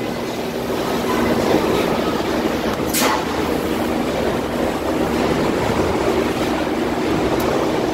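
Steady drone of machinery across a factory floor, a dense mechanical din with a low hum in it. A brief, sharp noise cuts through about three seconds in.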